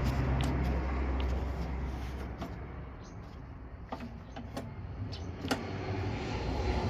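A low rumble that fades out over the first couple of seconds, then a handful of light clicks and knocks from lawn mower parts being handled and fitted during assembly.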